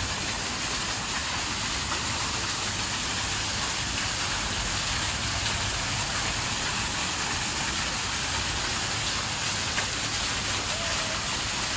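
Small artificial waterfall in a rockwork grotto, water falling steadily into a pond.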